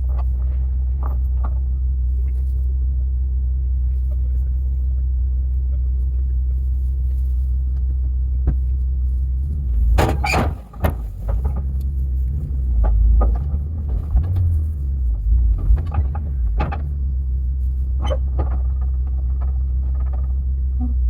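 Truck engine running with a steady low rumble, with a string of sharp knocks and clunks partway through.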